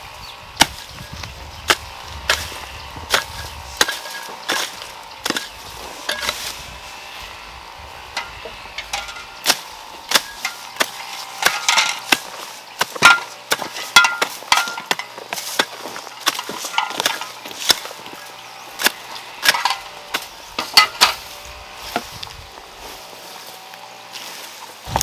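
Irregular sharp knocks and clinks of hand work with tools, sometimes several in quick succession, busiest in the middle.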